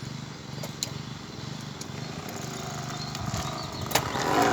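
Plastic bottle against a bicycle wheel's spokes, rattling in a fast steady buzz as the wheel turns, a homemade imitation of a motorcycle engine. A sharp click comes near the end.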